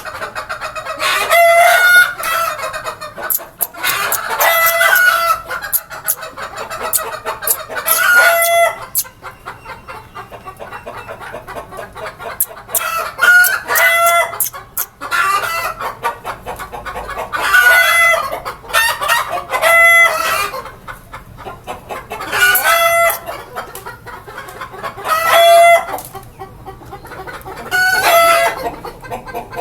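Desi chickens calling over and over: about ten loud crows, each about a second long and coming every few seconds, over steady clucking from the flock.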